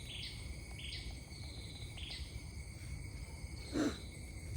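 Insects calling outdoors: a short chirping call repeats about once a second over a steady high drone. Near the end comes one short, louder knock or splash.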